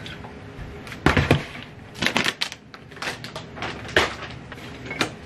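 A plastic laundry basket holding detergent bottles being lifted, set down and handled: a string of knocks and rattles about one a second, with a quick cluster of clatters just after two seconds in.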